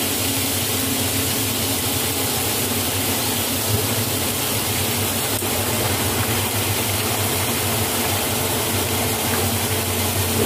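Chicken pieces frying in oil in a wok, a steady hiss of sizzling, over a steady whirring hum of a fan. A single click about four seconds in.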